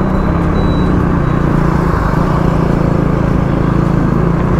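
Motorcycle engine running steadily while riding at a constant speed, under a continuous rush of wind and road noise.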